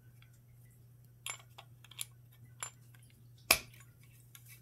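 Brass trigger guard clicking against the wooden pistol stock as it is pressed into its inlet, not yet seating fully: a few light clicks and one sharper click about three and a half seconds in, over a faint steady low hum.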